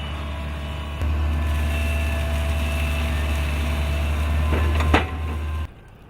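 Heavy machinery engine running steadily, stepping up in level about a second in, with one sharp crack near the end. The sound then cuts off abruptly.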